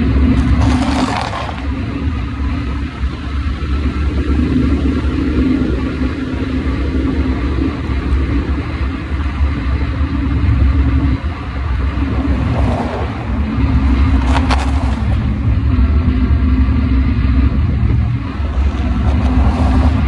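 Steady low rumble of road and wind noise from travelling along a highway, with a steady low hum underneath. Passing cars swish by about a second in and twice more between about 12 and 15 seconds.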